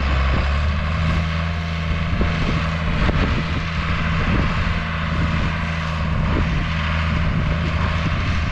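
Farm tractor pulling a dike-making implement across a field, its engine a steady, even drone under a broad hiss.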